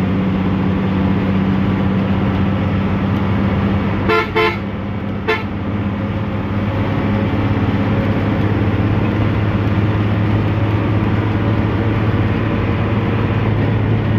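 Coach engine running steadily while driving on the highway, heard from the driver's cab. About four seconds in, a horn gives three short toots: two close together, then one more about a second later.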